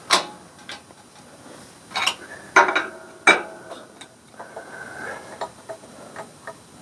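Metal parts of a Corvair rear end clinking and knocking together as they are handled and fitted: a few sharp clanks, some with a short metallic ring, in the first few seconds, then a brief scraping sound.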